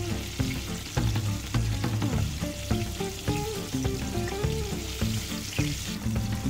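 Food frying in hot oil, a steady sizzle with scattered small crackles, under background music.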